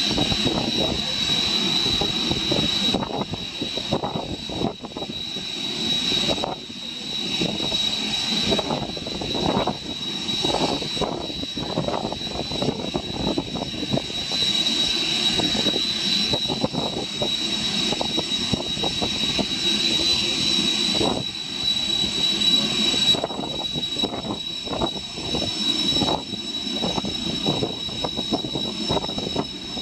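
Jet engines of Kawasaki T-4 trainers (Blue Impulse) flying: a steady high whine over a broad rumble. Strong gusting wind on the microphone breaks up the low end.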